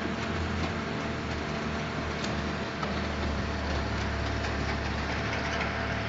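Vertical-shaft concrete mixer pump running steadily, an even mechanical hum and rattle. About halfway through, a deeper engine drone grows louder as a wheel loader comes up to the mixer.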